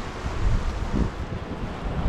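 Wind buffeting the microphone in gusts over the steady rush of a large river.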